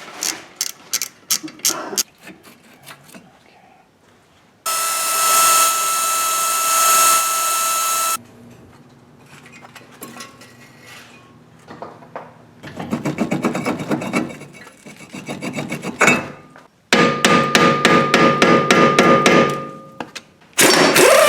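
A few ratchet clicks, then an impact wrench in several bursts. It first spins with a steady whine for about three seconds, then hammers in rapid, evenly spaced blows for two runs of a few seconds each, breaking a fastener loose.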